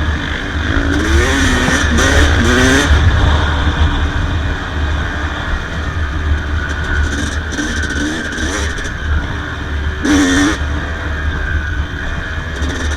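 Yamaha YZ250 single-cylinder two-stroke engine running, its pitch rising and falling with the throttle, with several quick revs about a second in and another near the end.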